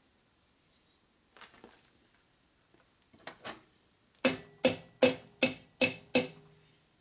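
Small hammer tapping the intake manifold into place between the heads of a Harley shovelhead V-twin. A few light taps come first, then six sharp strikes in quick succession in the second half, each with a metallic ring.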